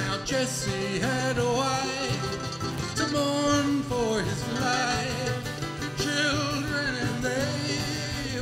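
An acoustic guitar strums the chords while a mandolin picks a lead melody: an instrumental folk break, with no singing in it.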